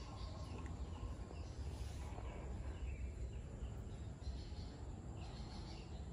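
Open-air ambience: scattered small bird chirps over a steady low rumble.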